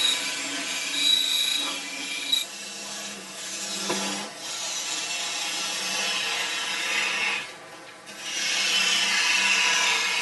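Wood being turned on a small electric lathe: a cutting tool scraping the spinning wood in a continuous rasping hiss, which eases off briefly about three-quarters of the way through and then picks up again.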